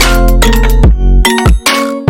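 Instrumental electronic music: deep bass hits, sharp drum strikes and bell-like chiming tones, without vocals.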